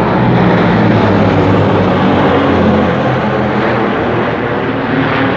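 A formation of Tu-95 strategic bombers passing overhead, their contra-rotating turboprop engines giving a loud, steady drone with a low propeller hum.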